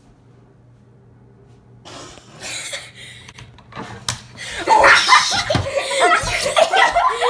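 Near-quiet for about two seconds, then shuffling noises and a sharp knock about four seconds in, followed by a person laughing loudly.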